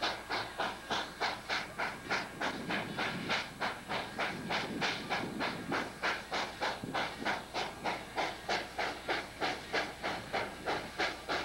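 Southern Pacific 786, a 2-8-2 Mikado steam locomotive, working steam as it approaches. Its exhaust chuffs in a steady, even rhythm of about three to four beats a second.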